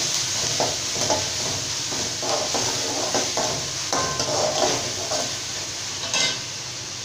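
A metal spoon stirring and scraping chopped onion, curry leaves and ginger-garlic paste around a kadai, over a steady sizzle of frying oil as the mixture is sautéed. The scraping stops near the end, leaving only the sizzle.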